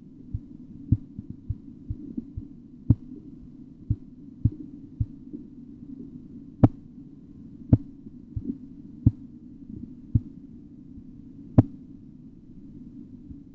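Korotkoff sounds heard through a stethoscope as a blood pressure cuff deflates: short, sharp taps at uneven spacing, roughly one a second and varying in strength, over a steady low hum. The taps stop about two seconds before the end; the disappearance of the sounds is the point read as diastolic pressure.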